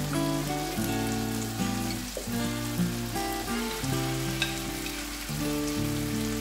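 Onion, tomato and hot peppers sizzling in oil in a frying pan, with background music playing over it.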